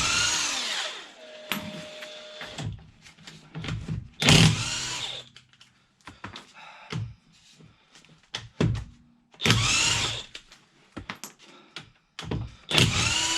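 DeWalt DCF899 cordless impact wrench on its lowest power setting, running in four short bursts of about a second each as it undoes wheel nuts. Between the bursts come short clicks and clinks of handling.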